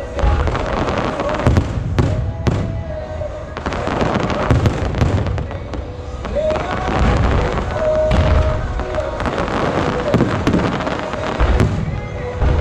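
Aerial fireworks shells bursting in quick succession, a string of sharp bangs over continuous crackling.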